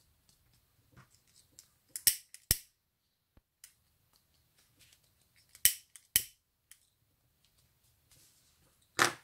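Sharp clicks as ribbon is worked by hand: two quick pairs, then a single one near the end, with faint rustling of ribbon between.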